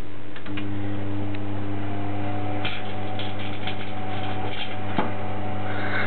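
Microwave oven running on high with a steady electrical hum, while a CD inside arcs: scattered crackles and snaps of sparks jumping across the disc's metal layer, with one sharp snap about five seconds in.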